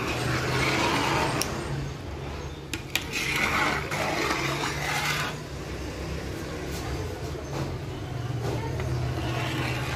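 Gulab jamun dough balls sizzling as they deep-fry in foaming hot oil. The sizzle swells and eases over a steady low hum, and a spoon clicks against the pan a few times in the first few seconds.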